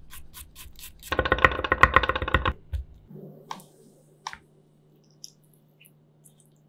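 Chef's knife chopping garlic on a wooden cutting board: a few steady taps, then about a second in a loud fast run of rapid chopping lasting about a second and a half. After that only a few faint light clicks.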